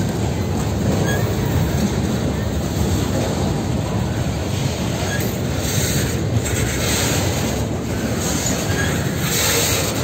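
Freight train of boxcars rolling past close by: a steady rumble of wheels on rail, with high-pitched wheel noise rising about six seconds in and again near the end.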